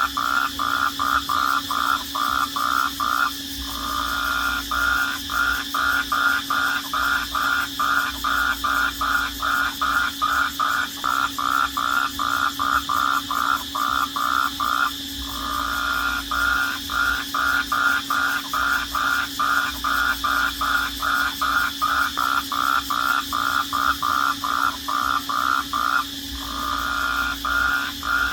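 Night chorus of crickets: a fast, even pulsing chirp, about three to four chirps a second, that breaks off briefly three times, over a continuous high-pitched trill.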